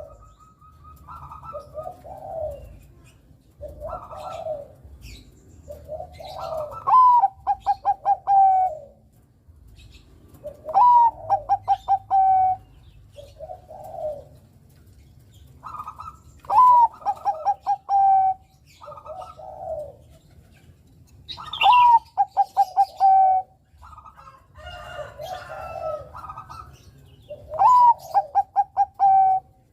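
Zebra dove (perkutut) of the Bangkok type singing: phrases repeat about every four to five seconds, each a quick run of short notes ending in a longer, slightly falling note, with softer lower coos between the phrases.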